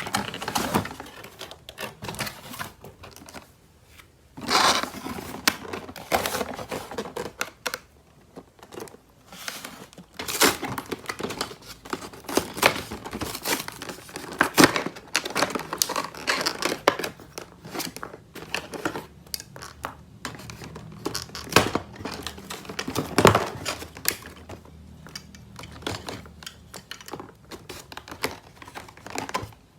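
Close-up handling of toy packaging: plastic crinkling and tearing, with irregular sharp clicks and taps from plastic pieces.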